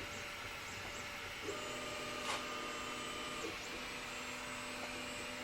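Laser engraver running a cutting job: a steady hiss, with the motors of the moving head giving a steady whine for about two seconds from a second and a half in, and a single click in the middle.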